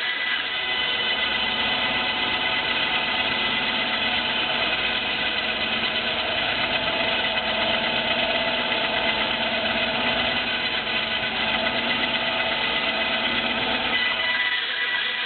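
Stationary power saw running steadily as its blade cuts a circle in a wooden board that is turned on a pivot jig.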